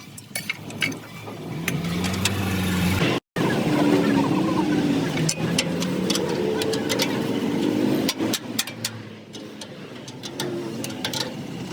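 A vehicle engine running, its pitch rising in a short rev in the first few seconds, with scattered knocks and clicks over it; the sound drops out for a moment about three seconds in.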